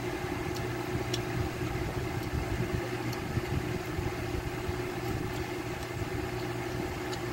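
Electric stand fan running with a steady hum, with a few faint clicks over it.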